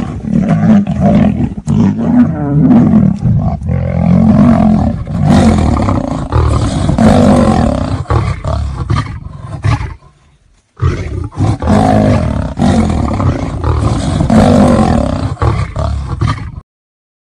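Lion and tiger roaring during a fight, near-continuous and loud, with a short break about ten seconds in. The roaring then picks up again and cuts off suddenly about a second before the end.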